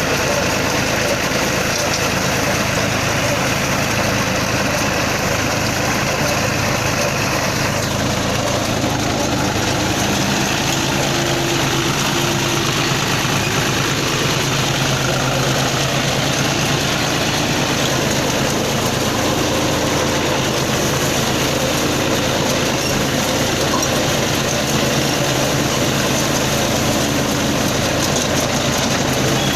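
Tractor engine running steadily while driving a round straw baler, with the baler's machinery clattering over the engine.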